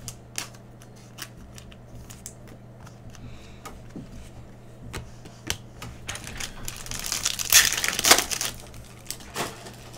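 Trading cards clicking lightly as they are handled one after another, then, after about six seconds, a Panini Prizm card pack's shiny wrapper crinkling loudly as it is torn open, for about two seconds.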